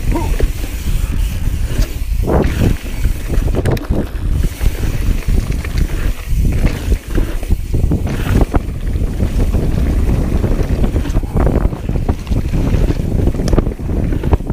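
Wind buffeting the microphone while a mountain bike rolls fast down a dirt trail, with tyre noise and irregular clatter and knocks from the bike over bumps and wooden ramps.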